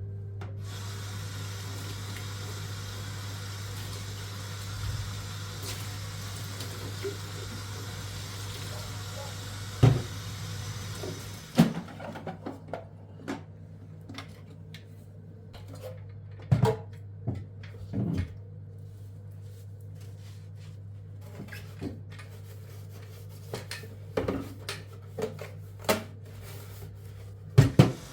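Water running from a tap into a sink for about eleven seconds and stopping abruptly, then scattered clinks and knocks of dishes and utensils. A steady low hum sounds underneath throughout.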